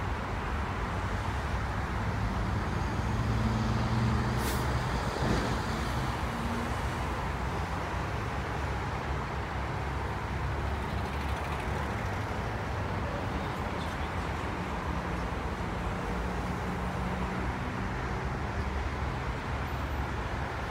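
Steady road-traffic noise from cars and trucks passing on a busy highway, with a short hiss about four and a half seconds in.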